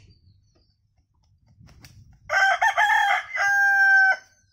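A rooster crowing once, starting about two seconds in and ending on a long held note.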